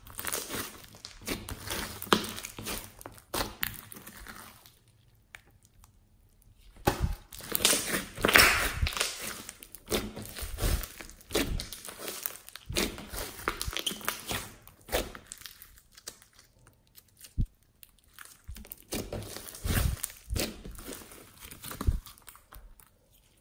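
Fluffy slime being squeezed, stretched and folded by hand, giving dense runs of short, irregular clicks and pops. There are two brief pauses, about five and about sixteen seconds in.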